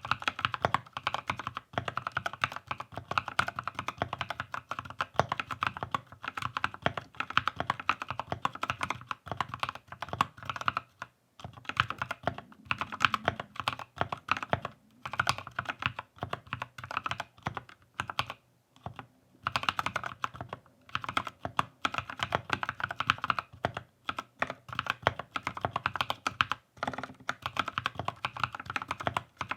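Typing on a Keychron K6 mechanical keyboard with NovelKey Cream linear switches: a steady, unhurried run of keystrokes, with a few brief pauses.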